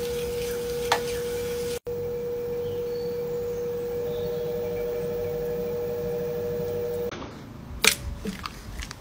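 Electric pottery wheel running with a steady high-pitched whine while wet clay is centred on it; a second, fainter tone joins partway through. The whine stops about seven seconds in, followed by a couple of sharp wet slaps of a hand on clay near the end.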